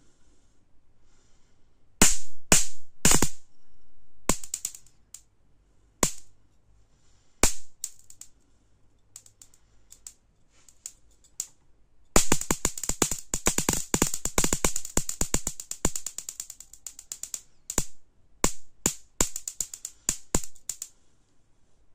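High-voltage sparks snapping across the gap between a screwdriver tip and the output wire of a homemade mains-powered capacitor-and-diode voltage multiplier, a mosquito-killer circuit. Scattered single snaps give way about halfway through to a rapid crackling run of several seconds, then more single snaps.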